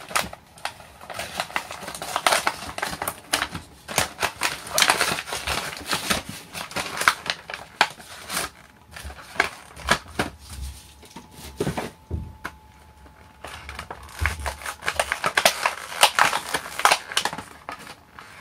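Crinkling and clicking of plastic toy packaging handled and opened by hand: a clear plastic blind box and the small wrapper bags inside it. It comes in two busy stretches with a quieter spell in the middle.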